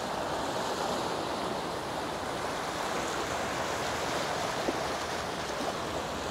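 Small sea waves breaking and washing over flat rocks at the water's edge: a steady rush of surf.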